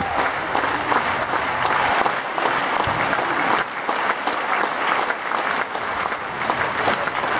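Large theatre audience applauding, a dense steady clapping that keeps up without a break, joined by the chorus clapping on stage.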